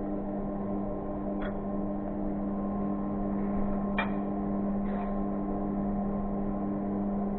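A steady, low electrical hum, with three light clinks of a serving spoon against crockery, the clearest about four seconds in.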